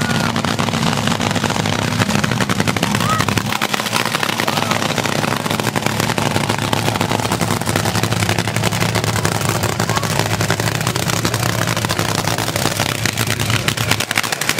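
Top Fuel dragster's supercharged nitromethane Hemi V8 idling with a fast, steady crackle.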